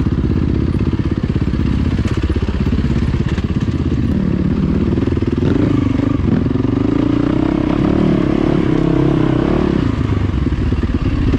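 Dirt bike engine running close up while being ridden over a rocky trail, its pitch rising and falling with the throttle, most noticeably in the second half.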